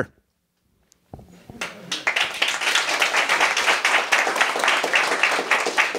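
Audience applauding: clapping starts about a second in and quickly builds to steady applause.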